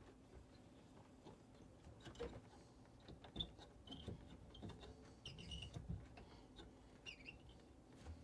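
Near silence: room tone with a few faint scattered clicks and some brief high squeaks.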